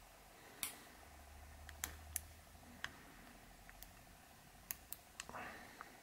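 Faint, irregular small metallic clicks, about ten in all, of a short hook pick and tension tool working the pins inside a stainless steel BlackSpur disc padlock's keyway during picking.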